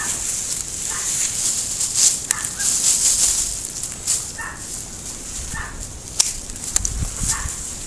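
Leafy Japanese maple branches rustling as they are pushed aside and handled, with two sharp snips of hand pruning shears in the last couple of seconds. An animal calls briefly and repeatedly in the background.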